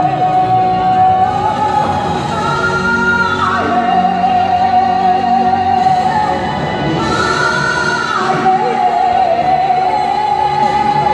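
A woman singing a gospel song solo into a microphone, amplified through a PA, holding long notes of a second or two with vibrato that step up and down between pitches.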